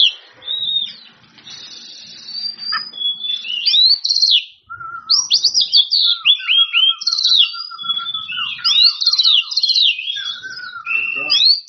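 Oriental magpie-robin singing a loud, fast, varied song of whistled notes, sharp rising and falling slurs and short trills, with a brief pause a little before the middle.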